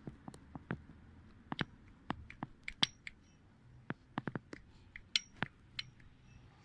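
Irregular light metallic clicks and clinks of small metal parts or tools being handled, a couple of dozen sharp ticks spread unevenly with a few short ringing clinks.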